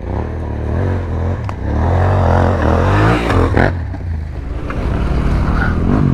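Off-road motorcycle engine pulling under throttle over rough ground, its revs rising and falling again and again and loudest from about two to four seconds in, with a few sharp knocks over the top.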